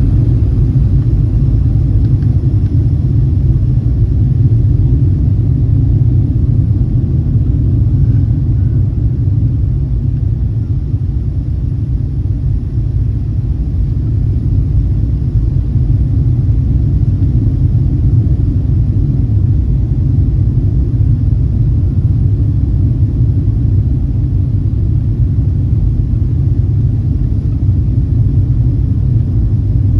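Steady low rumble of an airliner heard from inside the passenger cabin: engine and airflow noise, with no distinct thump or change.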